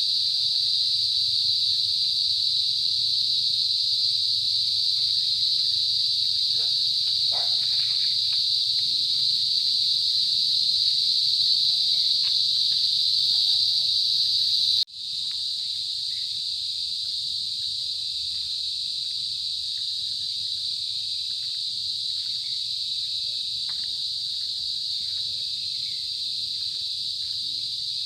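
Crickets chirping in a steady, high-pitched continuous chorus. It cuts out sharply for an instant about fifteen seconds in, then carries on a little quieter.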